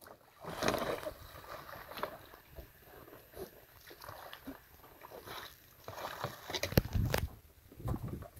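Water splashing and sloshing against a sit-on-top kayak as a man hauls himself out of the water onto it, with effortful breathing and grunts. A few louder knocks and splashes come about seven seconds in as he gets up onto his knees on the hull.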